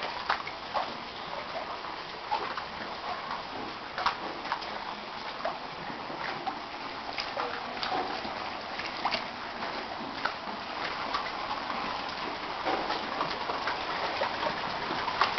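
Steady rush of flowing floodwater, with scattered small splashes.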